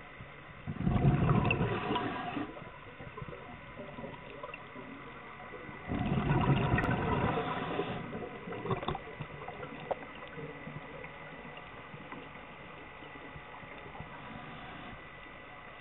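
A scuba diver's exhaled bubbles pouring from the regulator, heard underwater through the camera housing: two loud gurgling bubble bursts about five seconds apart, with a low bubbly hiss in between.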